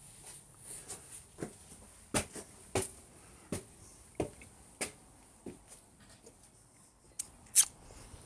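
Footsteps going down concrete steps and onto a concrete walk: sharp taps at a walking pace, about one every two-thirds of a second, with a louder one near the end.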